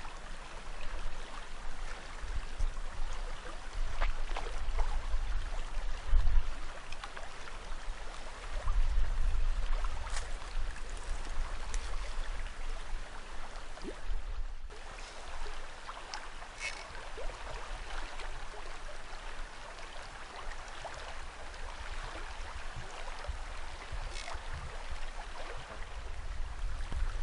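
Steady rush of flowing river water, with low rumbles coming and going beneath it and a brief dropout about halfway through.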